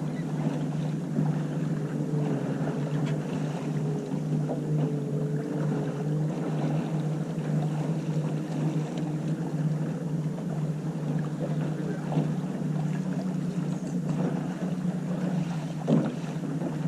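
Small sailboat under way: water washing along the hull with a steady low rumble of wind, and a single sharp knock near the end.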